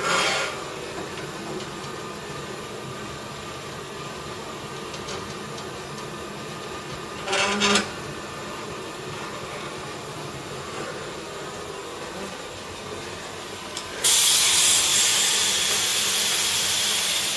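Steady drone of a small glass-blowing hot shop's furnace and equipment running, broken by two short knocks, one at the start and one about seven and a half seconds in. About fourteen seconds in, a loud hiss starts suddenly and fades over the last few seconds.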